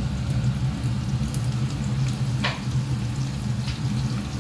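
Chopped garlic, ginger and green chili sizzling in hot butter and olive oil in a pan, with scattered crackles and one sharper pop about halfway through, over a steady low hum.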